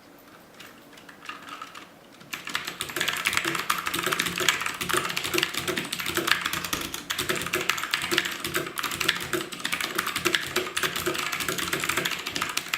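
Typing on a Glorious Modular Mechanical Keyboard (GMMK) in a switch sound test: rapid, continuous keystrokes that start about two seconds in.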